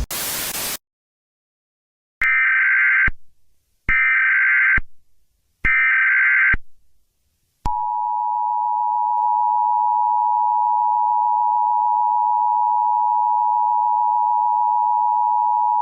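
A brief burst of static hiss, then three short bursts of Emergency Alert System header data tones, followed by the steady two-tone EAS attention signal.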